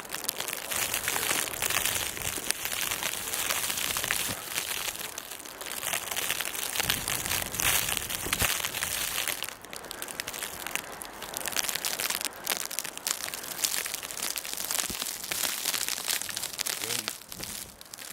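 Footsteps crunching through deep fresh snow, an irregular crunch with every step over a steady hiss.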